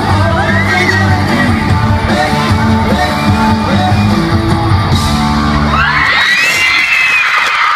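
Live pop-rock band playing with electric guitars, bass, drums and singing; the music stops about six seconds in and is followed by high-pitched screaming and cheering from the crowd of fans.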